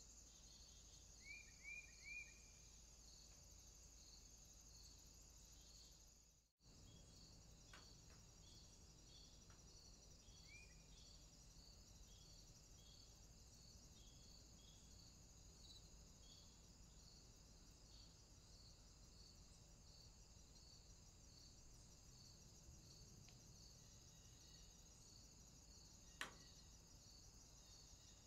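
Near silence with crickets chirping faintly and steadily, about two chirps a second. A few short, higher chirps sound about a second in, and a single sharp click comes near the end.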